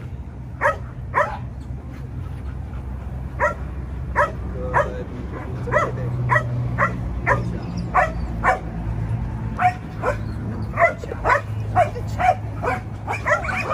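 A dog barking again and again in short, sharp barks, spaced out at first and coming faster, about two a second, in the second half. A steady low rumble runs underneath.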